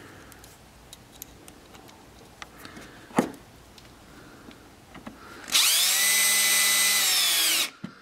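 Cordless drill-driver motor spins up, runs steadily for about two seconds near the end, then winds down, working a screw for the charging port's mounting in the ATV's plastic panel. Before it come light handling clicks and one sharp knock about three seconds in.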